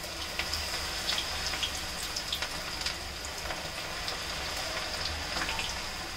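Hot oil in a steel kadhai on high flame sizzling and crackling as coated vegetable pieces are dropped in to deep-fry. The sizzle grows louder about half a second in as the pieces hit the oil.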